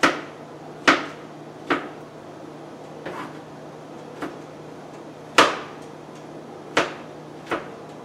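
Kitchen knife chopping vegetables on a cutting board: about eight sharp, unevenly spaced knocks, the loudest a little past halfway through.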